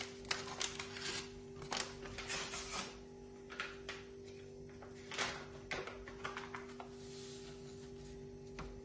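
Paper-foil sachet of whipped-cream powder being handled and torn open: a run of sharp crackles and clicks, then the powder poured into a glass bowl of milk near the end. A steady low hum runs underneath.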